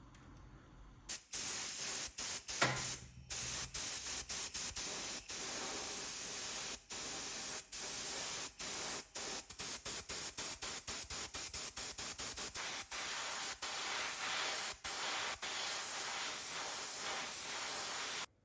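Spray paint hissing onto a model car part in a long run of bursts, cut off and restarted many times, the bursts short and in quick succession in the second half. One short sharp sound stands out near the start.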